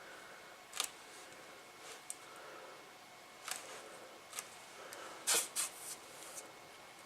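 Short scraping clicks from soldering tools being handled at a radio circuit board during solder touch-up work, about five in all, with the loudest pair about five seconds in.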